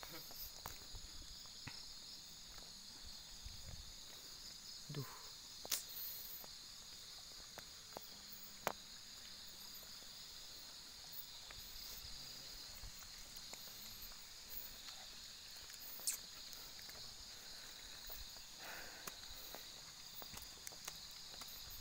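Steady high-pitched chorus of insects, crickets or cicadas, chirring without a break, with a few isolated sharp clicks.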